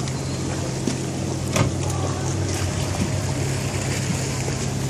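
Towing motorboat's engine running steadily with a low drone, heard from on board, under a hiss of wind and water spray. A brief thump about one and a half seconds in.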